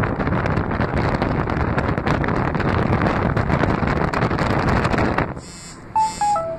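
Wind rushing and buffeting over the microphone from a car moving with its window open. It drops off sharply about five seconds in, and near the end come a few short tones stepping down in pitch.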